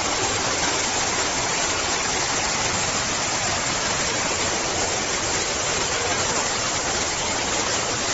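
Floodwater rushing down a flight of stairs and across a station floor: a steady, loud rushing of water.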